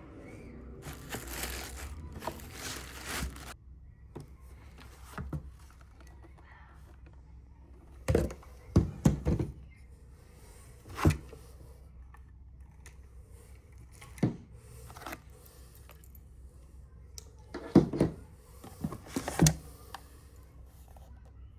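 Packaging rustling and crinkling for a couple of seconds as a cordless stick vacuum is unboxed. Later come a scattered series of sharp plastic clicks and knocks from its parts being handled.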